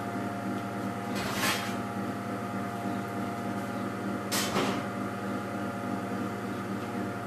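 Steady electric hum of a running kitchen appliance, holding several steady tones, with two brief noises about a second and a half and four and a half seconds in.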